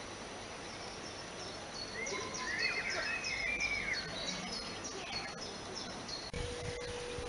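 Outdoor background noise with a bird calling: a run of short high chirps, about three a second, mixed with a few lower gliding whistles for a few seconds. Near the end a steady low hum starts abruptly.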